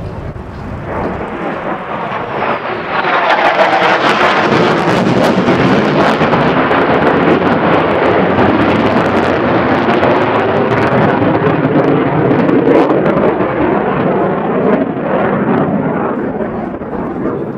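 Lockheed Martin F-35A's single Pratt & Whitney F135 afterburning turbofan on a flypast: loud, crackling jet noise that builds over the first few seconds, holds for about ten seconds, and eases off slightly near the end.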